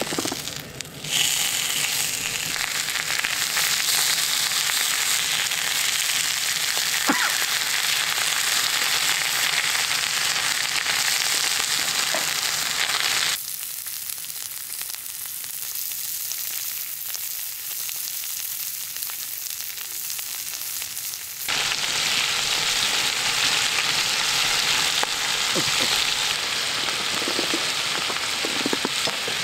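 Lamb ribs and French rack sizzling on a hot cast-iron griddle, starting loud as the meat goes on about a second in. The sizzle drops quieter for about eight seconds in the middle, then comes back loud.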